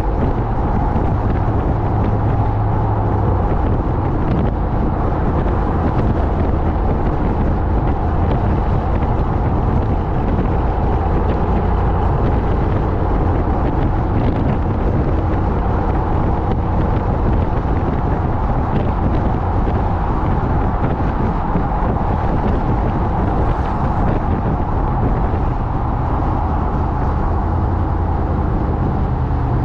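Ram TRX's supercharged 6.2-litre V8 exhaust, running steadily as the truck drives along at an even pace.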